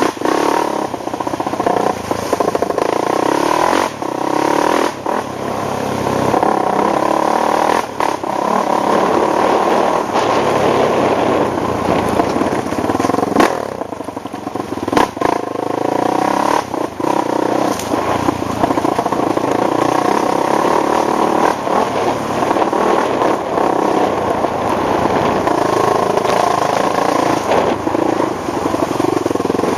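ATV engine running under way, its pitch rising and falling with the throttle, with scattered brief knocks and clatter.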